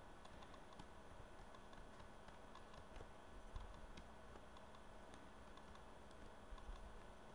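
Faint, scattered light ticks of a stylus tapping and writing on a tablet, over quiet room hiss.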